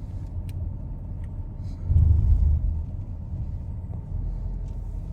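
Car driving along a road, heard from inside the cabin: a steady low rumble of road and engine noise, swelling louder for a moment about two seconds in.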